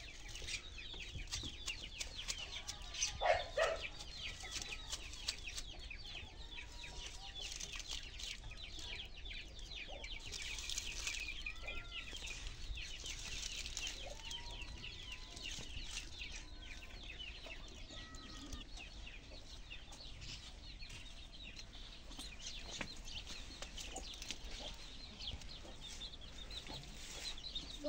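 Chickens clucking against a constant background of rapid, high bird chirping, with a louder call about three seconds in.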